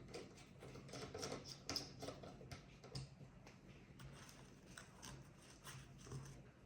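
Faint, irregular clicks and light taps from small computer hardware being handled, over a low steady hum.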